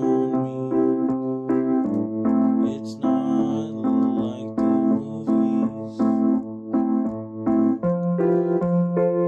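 Instrumental music: an electric piano or keyboard playing evenly repeated chords over a held low note, the harmony shifting about two seconds in and again near the end.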